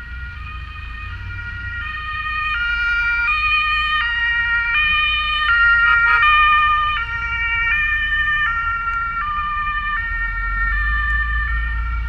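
Ambulance two-tone siren (German Martinshorn) alternating between a high and a low tone about every three quarters of a second, growing louder and loudest about halfway through as the ambulance crosses ahead, then easing off slightly. A low rumble runs underneath.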